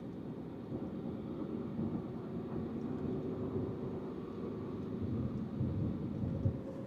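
Steady road and wind noise inside a moving Tesla Model 3's cabin, picked up close to the frameless driver's window.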